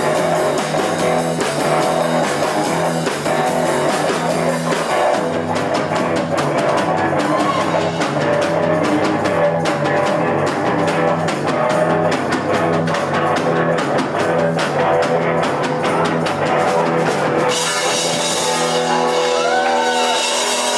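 Live rock band playing: electric guitar, bass and drum kit driving a punkabilly groove, with a steady repeating bass line under regular drum beats.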